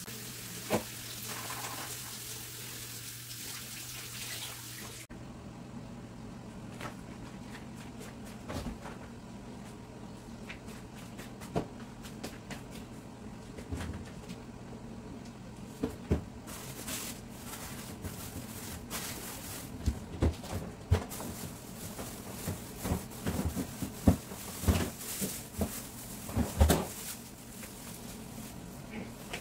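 A kitchen tap runs into the sink for about five seconds and stops. After that comes a low steady hum with scattered clicks, knocks and rustles as items are handled at an open refrigerator, growing busier in the second half.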